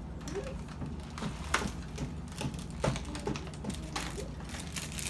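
Eating noises: short wet clicks and smacks of chewing and handling food, scattered irregularly, over a steady low hum.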